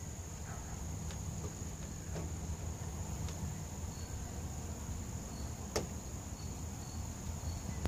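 Steady high-pitched chorus of insects such as crickets, over a low rumble. Scattered light knocks come from a child climbing on a wooden playset, one sharper knock about six seconds in.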